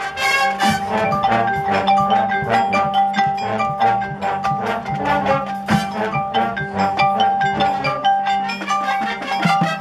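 Marching band music: the front ensemble's marimbas and xylophones play a fast stream of struck notes over steady held tones.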